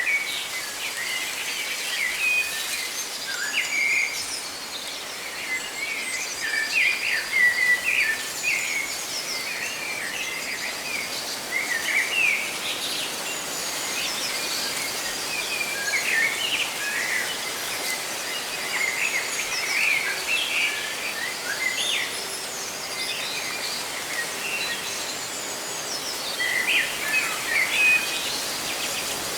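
Many birds chirping and calling in short, scattered phrases over a steady rustle of leaves, with a lull in the birdsong near the end.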